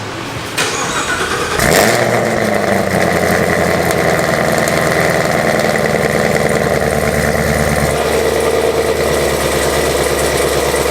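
Supercharged V8 of a ZL1 Camaro cranked on the starter, catching with a short rev flare about two seconds in, then settling into a steady, loud idle through freshly fitted Corsa headers on its first startup since the install.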